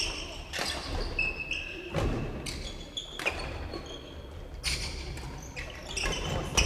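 Badminton rally: rackets hitting the shuttlecock with sharp smacks roughly every second and a half, mixed with high, short squeaks of court shoes on the wooden floor, echoing in a large hall.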